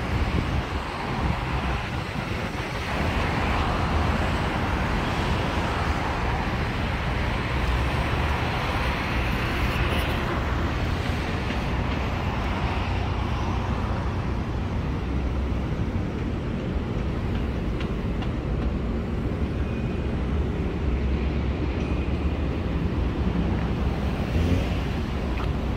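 Steady road traffic noise from a busy city street.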